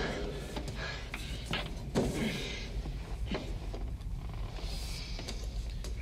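Muffled thumps and knocks of a man crawling inside a sheet-metal air duct, over a steady low hum, from a film soundtrack.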